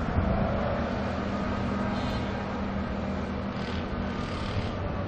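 A mobile crane's diesel engine running steadily.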